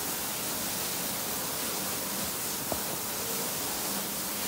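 Steady hiss of water spraying from training fire extinguishers, with a single sharp click a little past halfway.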